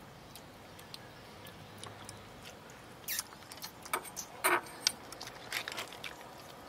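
Eating at a table of shellfish: scattered small clicks, taps and mouth smacks from chopsticks, shells and chewing, with a few sharper clicks between about three and five seconds in.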